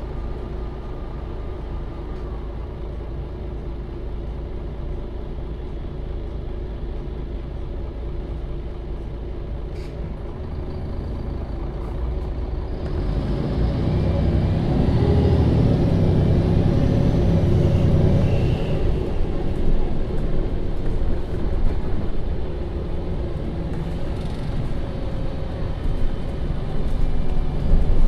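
MAN Lion's City city bus engine running, heard from inside the bus. It is a steady hum at first, grows clearly louder and deeper for about six seconds near the middle, then eases off.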